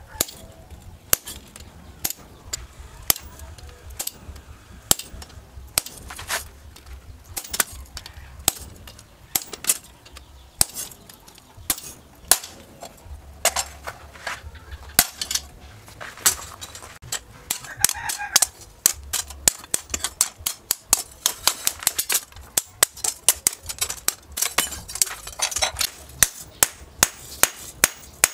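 Blacksmith's hammer striking steel at an anvil: sharp metallic blows on a set tool held against a spring-steel knife blank and on the blade itself. The blows come unevenly at first, then quicken near the end to about two or three a second.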